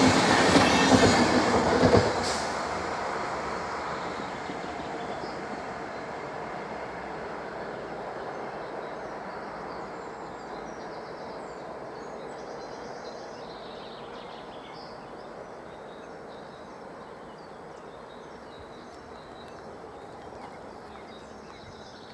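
Train of a class 111 electric locomotive hauling a Regio-Tram unit, its wheels rumbling on the rails. The noise is loud for about two seconds, drops suddenly as the train passes, then fades away slowly as it recedes.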